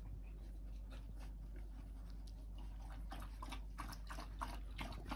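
Four-week-old Australian Shepherd puppies scuffling and chewing at play, faint throughout, with a run of small clicks and scratchy rustles in the second half.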